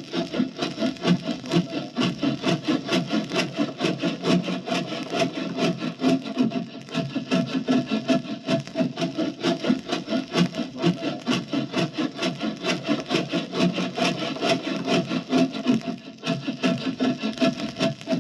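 Long hand saw cutting through a tree limb in quick, even back-and-forth strokes, several a second, keeping a steady rhythm.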